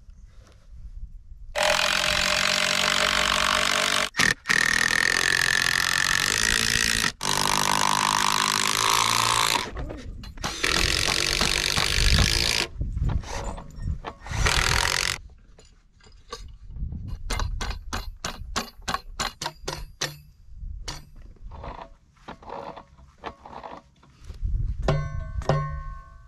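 Power drill running in several long bursts as lumber pieces are fastened together. It is followed by a quick, evenly spaced series of sharp clicks and then a few scattered knocks.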